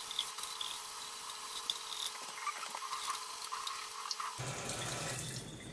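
Kitchen tap running steadily into a stainless steel sink, with faint rubbing and small ticks as a fine 2000-grit diamond sanding pad polishes the cut glass rim of a wine bottle under the stream.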